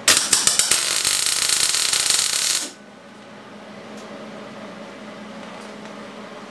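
Electric arc welding on a steel frame: a loud, dense crackle of the arc for about two and a half seconds that stops abruptly. A steady low hum carries on after it.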